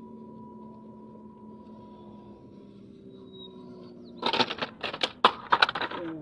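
Small RC truck's electric motor and gearbox whining steadily, the pitch slowly sinking. About four seconds in, a loud burst of crunching and clattering on loose pebbles lasts about two seconds, and the whine then slides down and dies away near the end.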